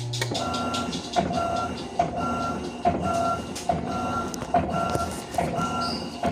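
Electrolux LES15 washing machine starting its wash agitation: just after the start the steady hum stops, then about once a second a click is followed by a short motor whine, over and over in a regular rhythm as the agitator drives back and forth, washing normally.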